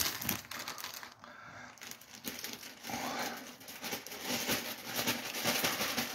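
Plastic bag crinkling and rustling with small crackles as it is handled, while duckweed and tank-bottom debris are tipped into a tub of water; it goes quieter for a moment about a second in, then picks up again.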